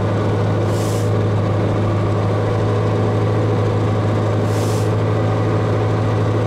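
Ural truck's engine running steadily under way, heard from inside the cab as a deep, even drone. Two short hisses come about a second in and again near five seconds.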